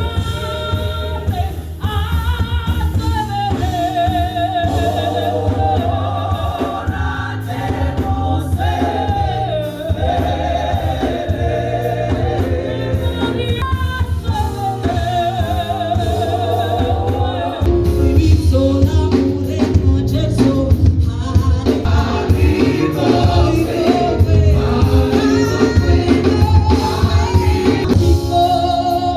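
Gospel music: choir and lead voices singing over a steady bass beat, swelling louder about two-thirds of the way through.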